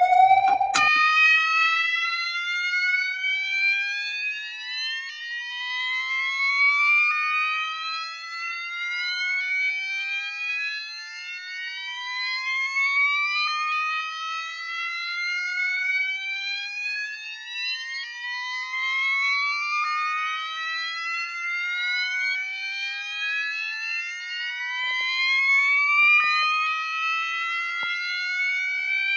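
Several fire alarms sounding the slow whoop evacuation tone together, out of step with each other: overlapping rising sweeps, each repeating every few seconds. A click just under a second in, where the sound changes.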